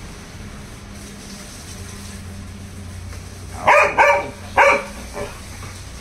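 A dog barking three times in quick succession, then a fainter fourth bark, over a low steady background hum.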